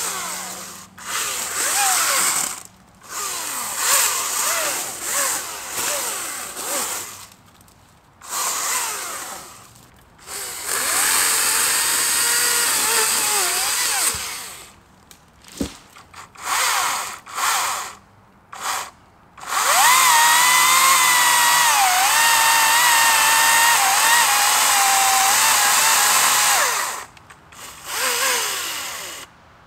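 Atlas 80V cordless brushless chainsaw run in a string of short trigger bursts. Its electric motor whine rises as it spins up and sags as the chain bites into brush. The longest run, of about seven seconds, comes in the last third.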